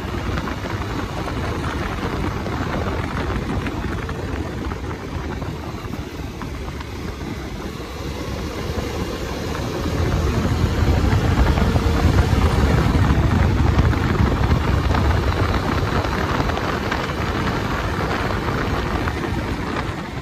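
Bajaj Dominar 250 motorcycle on the move: engine and wind rushing over the microphone, a steady rush that grows louder about halfway through and stays up for several seconds.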